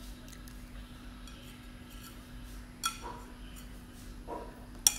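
Chopsticks clinking against a bowl of instant noodles twice, short ringing clinks about two seconds apart, the second near the end, over a steady low hum.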